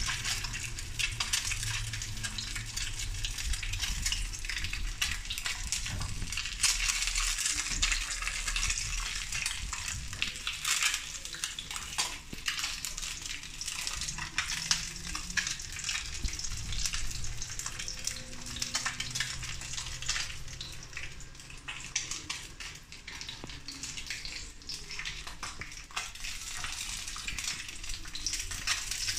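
Hot oil sizzling and crackling steadily around a threadfin fish fillet pan-frying in a nonstick pan.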